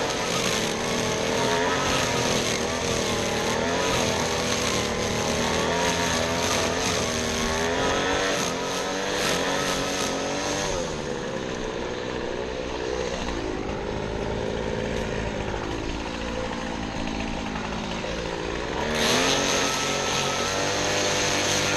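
Small gasoline engine of lawn-care equipment running continuously, its pitch wavering up and down with changing speed or load. About halfway through it eases off and the hiss softens, then it picks back up to full strength near the end.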